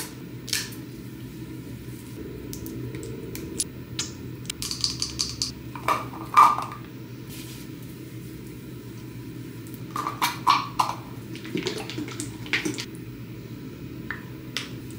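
Light clicks and taps of plastic skincare bottles and caps being handled, in scattered clusters with the loudest around the middle, over a steady low background sound.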